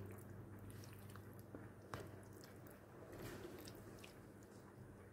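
Metal spoon stirring raw chicken pieces through a thick wet marinade, with faint squishing and a few light clicks of the spoon against the container. A steady low hum sits under it.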